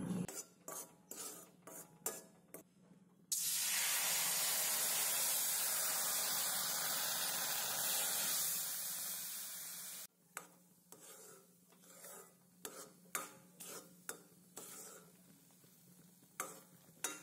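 A metal spoon scraping through dry-roasting rajgira flour in a metal pan in short strokes. About three seconds in, a loud steady sizzle starts as water goes into the hot pan; it lasts about seven seconds and cuts off suddenly. Then come short scraping strokes as the spoon stirs the wet flour.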